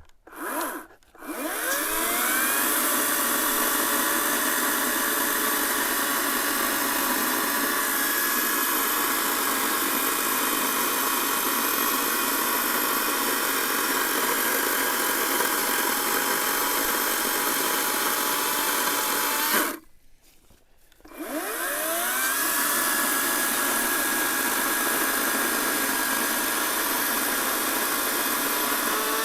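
Echo 58V battery chainsaw's electric motor spinning up and cutting a large white oak round, a steady whine mixed with chain-cutting noise. About twenty seconds in it stops for roughly two seconds, then spins up again and keeps cutting.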